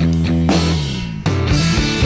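Background music: a rock track with guitar and drums.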